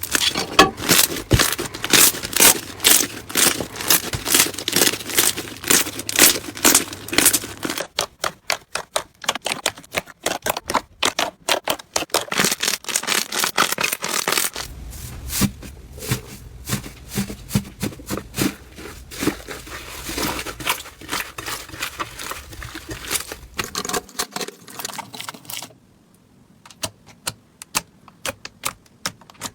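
Slime being squeezed and poked by hand, giving rapid clicks and crackles. The sound changes character several times, fainter and sparser near the end.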